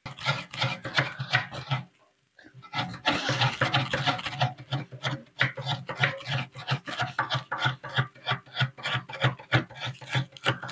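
Quick, rhythmic scraping strokes, about four a second, from a hand working over a plastic plate, with a short pause about two seconds in.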